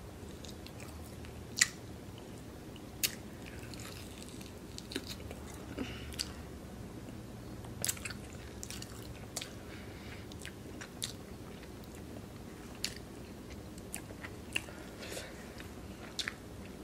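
A person chewing food close to the microphone, with scattered sharp clicks and short wet mouth smacks every second or two over a low steady hum.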